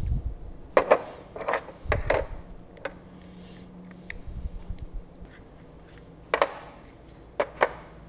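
Small plastic parts of a shower-valve mixing cartridge clicking and clacking as they are pulled apart by hand and set down on a steel table, with a scattered series of sharp clicks and a light knock.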